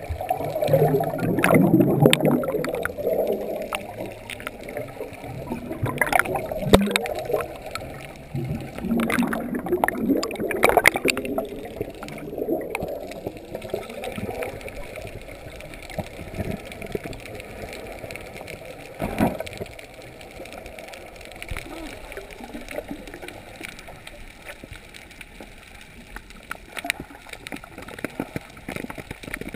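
Underwater bubbling and gurgling of scuba divers' exhaled air, heard in bursts every few seconds, louder in the first half and settling into a quieter, steady wash of water.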